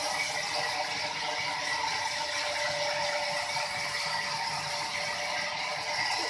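Sawmill machinery running steadily: a continuous mechanical rattle with a steady whine.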